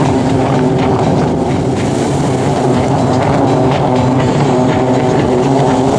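Jet ski engines running at racing speed, a loud steady drone with several held pitches.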